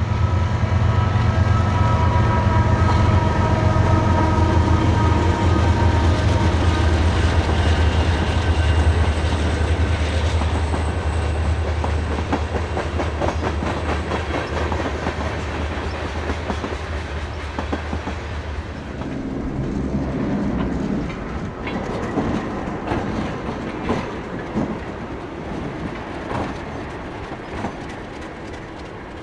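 Freight train passing: several diesel locomotives run by with a deep engine drone for the first half, then a string of covered hopper cars rolls past. The wheels click over the rail joints as the sound slowly fades.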